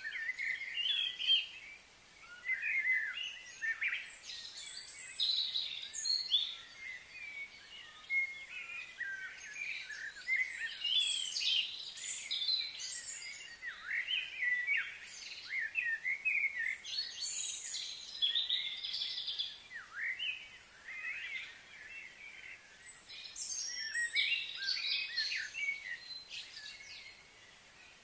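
Many birds chirping and singing at once, short overlapping calls and whistles coming thick and fast, over a steady high hiss.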